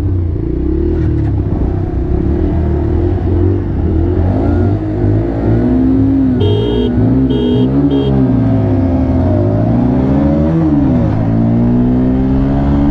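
Single-cylinder 125 cc Bajaj Pulsar motorcycle engines held revving at the start line, then accelerating hard from a standstill, the pitch climbing and dropping with each upshift. Three short beeps sound about six and a half seconds in.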